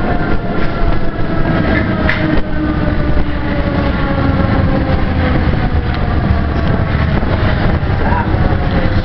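MF67 Paris metro train running on steel rails, with a heavy rumble and rattle and a whine that falls steadily in pitch as the train slows entering a station.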